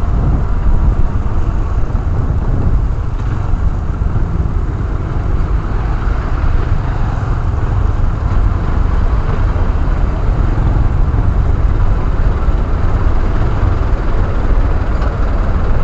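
Motorcycle riding in traffic, picked up by a helmet-mounted camera: a steady low rumble of wind on the microphone mixed with engine and road noise.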